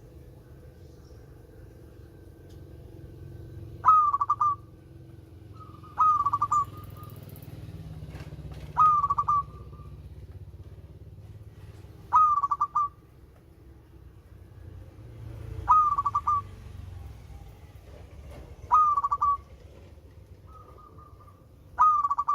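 Zebra dove (perkutut) cooing: a short, rapid trilled coo repeated about seven times, roughly every three seconds, over a faint low hum.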